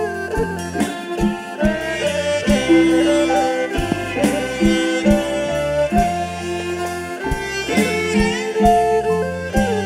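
Live kantrum band music, an instrumental passage: a melody line over electric bass, keyboard and a drum kit keeping a steady beat.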